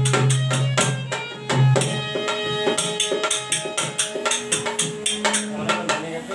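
Dholak drum played in a fast, even rhythm with a harmonium sounding held notes over it, an instrumental passage of a folk bhajan. A strong low sustained note drops out about two seconds in.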